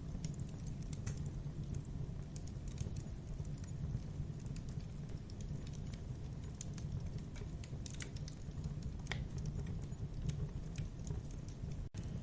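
Wood campfire burning: a steady low rumble of flame with irregular sharp crackles and pops from the burning wood. The sound briefly cuts out near the end.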